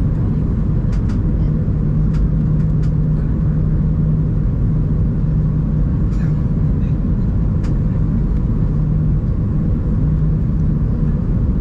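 Steady jet airliner cabin noise on descent for landing: a constant roar of engines and airflow with a low hum, and a few faint ticks.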